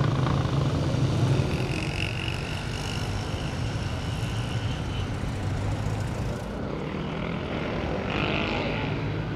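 Steady engine drone under outdoor street noise, strongest at the start, with a thin high whine for a few seconds in the middle.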